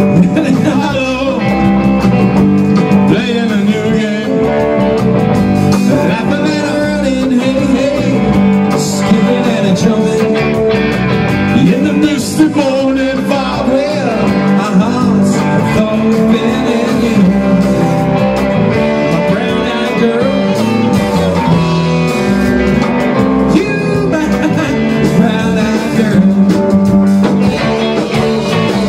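A live rock band playing loudly: two electric guitars over a full drum kit with steady cymbal and drum hits.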